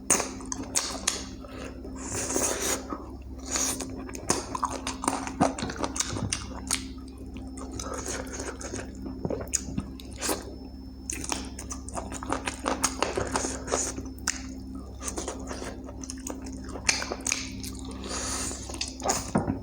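Close-up eating sounds of chicken curry with rice: wet chewing and lip smacks with irregular sharp clicks, over a steady low hum.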